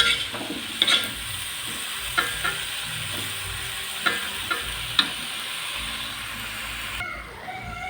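A stir-fry sizzling in a pan, with a spatula clinking and scraping against the pan every second or so as it is stirred. The sizzle changes abruptly near the end.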